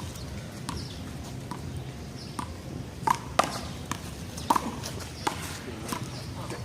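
A rubber handball struck by hand and rebounding off the wall and pavement during a one-wall handball rally: a string of sharp smacks at irregular spacing, loudest a little past three seconds in and again about four and a half seconds in.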